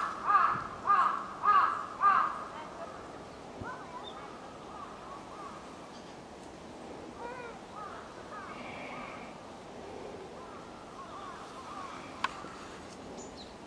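Crows cawing: four loud caws about half a second apart in the first two seconds, then fainter, more distant caws, and a single sharp click near the end.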